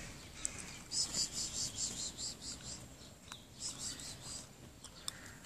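An insect chirping in quick trains of short high-pitched pulses, about four or five a second. There are two runs of pulses with a pause between them.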